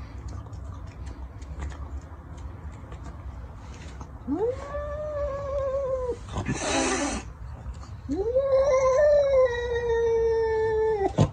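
Domestic cat giving two long, drawn-out yowls, the first starting about four seconds in and the second longer, with a sharp hiss between them and another hiss at the very end. It is a defensive threat display aimed at its own reflection in a mirror.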